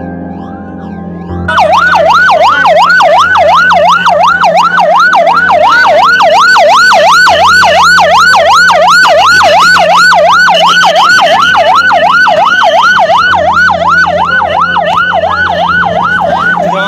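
Ambulance siren in a fast up-and-down yelp, about three sweeps a second, very loud and close. It starts abruptly about a second and a half in, cutting over soft music.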